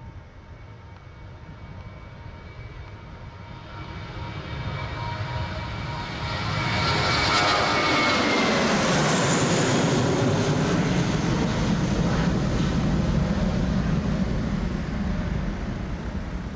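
Airbus A320 jet airliner on landing approach passing low overhead: the engine noise builds over several seconds, is loudest from about seven seconds in as its whining tones slide down in pitch as it passes, then a lower rumble slowly fades.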